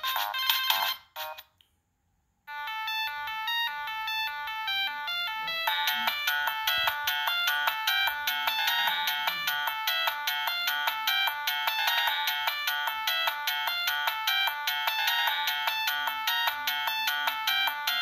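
Siemens C72 mobile phone's loudspeaker playing MIDI ringtones: one tune stops about a second and a half in, and after a second of silence a trance-style ringtone starts. It builds into a fast, steady beat about three seconds after it starts.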